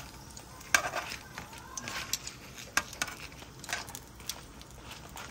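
Metal tongs clicking and scraping against a nonstick frying pan as dried chiles and garlic are turned while they toast in a little oil. A few sharp clicks, the loudest about a second in.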